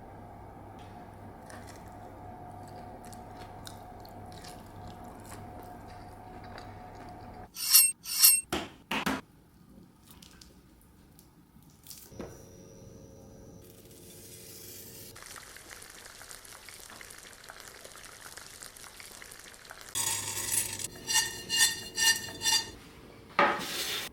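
Kitchen food-preparation sounds: a steady hum, then a few sharp clinks of utensils on dishes, a stretch of hiss like sizzling, and a quick run of ringing clinks near the end.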